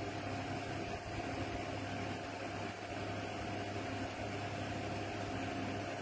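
A steady machine hum with background hiss, unchanging throughout, with a faint higher steady tone over a low drone.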